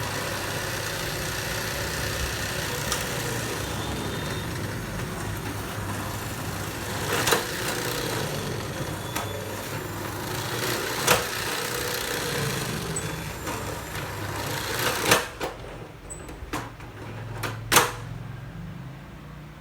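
Electric document drill running with a steady motor noise that starts suddenly, broken by sharp clunks every few seconds; the motor stops about three-quarters of the way through, and two more clunks follow.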